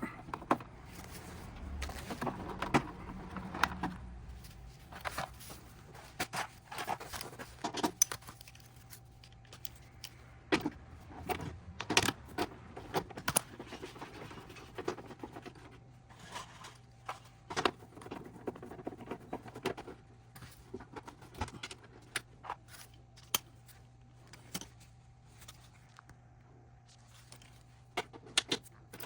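Irregular metal clicks, clinks and taps of hand tools and small metal parts being handled, with a few scrapes, as a motorcycle's speedometer cable is worked on at the front wheel.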